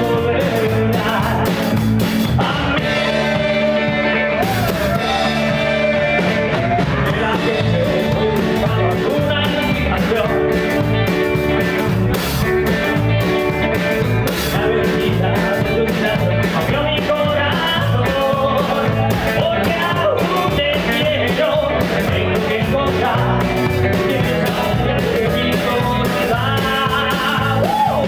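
Live rockabilly band playing a fast rock-and-roll song: electric guitar, keyboard and a drum kit played standing up, with a man singing lead.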